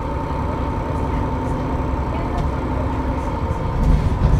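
A diesel city bus's engine and drivetrain running, heard inside the passenger saloon: a steady low drone with a thin whine on top, and two louder low surges near the end.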